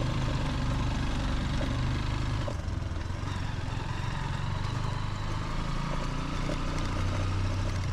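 Honda XR150L's single-cylinder four-stroke engine running at low speed with a steady low drone, its note shifting slightly about two and a half seconds in.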